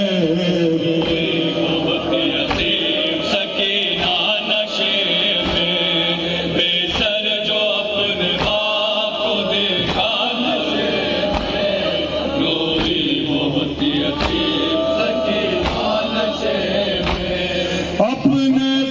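Chanted singing of an Urdu noha, a Shia mourning lament: voices hold long, drawn-out notes with sliding ornaments over a steady beat of sharp strokes, a little more than one a second.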